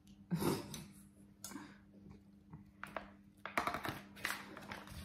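Metal serving utensil scraping and clicking against an aluminium foil baking tray while a portion of baked pasta is lifted out, a few short separate clicks and scrapes.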